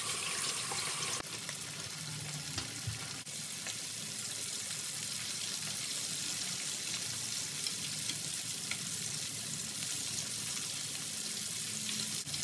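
Chicken wings deep-frying in hot oil in a pan: a steady sizzling and bubbling that holds evenly throughout.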